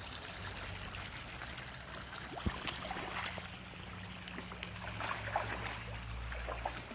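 Water trickling steadily in a fish pond, broken by several small splashes and plops as fish take floating feed pellets at the surface.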